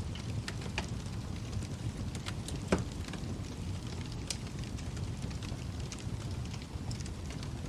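Wood fire burning in a fireplace: a steady low rumble of the flames with scattered crackles, and one loud pop about three seconds in.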